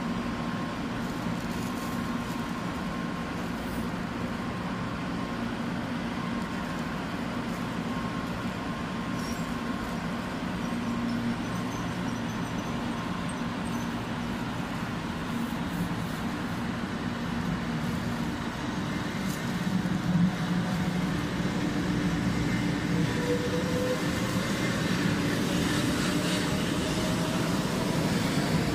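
JR West 500 Series Shinkansen pulling away: a steady electric hum, then from about two-thirds of the way in a motor whine that rises in pitch as the train gathers speed. It grows louder near the end as the cars slide past.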